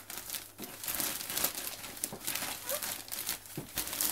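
Gift-wrapping paper being torn and crumpled by hand as a large present is unwrapped: a run of uneven rustles and rips.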